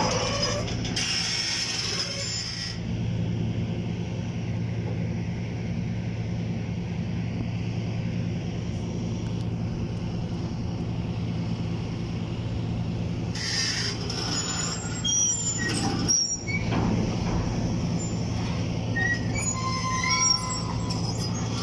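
Sumitomo SH210 hydraulic excavator's diesel engine running steadily with the boom raised, holding up a steel canopy frame. A few short high squeaks come in the second half.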